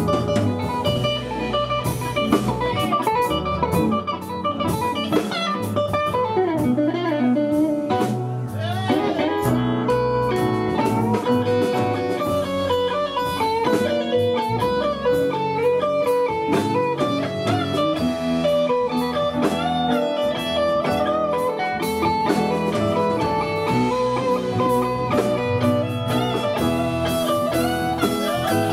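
Live blues band playing an instrumental passage, an electric guitar leading with bending, gliding notes over the band, with drum hits throughout.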